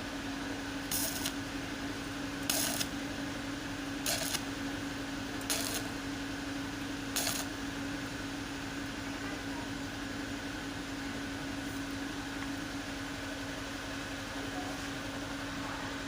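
A steady mechanical hum, with five short, sharp, noisy strokes about a second and a half apart in the first half.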